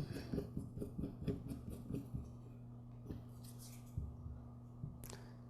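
Faint small clicks and scrapes of a screw being handled and threaded into a carburetor body, the screw that covers the pilot jet. A steady low hum sets in about two seconds in.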